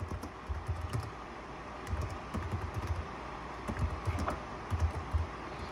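Light clicks of small buttons being pressed in quick succession, with soft low thumps of the device being handled.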